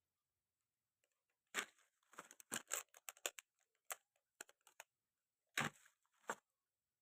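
Packaging and parts being handled during an unboxing: irregular small clicks and crinkles start about a second and a half in, with two louder handling noises near the end.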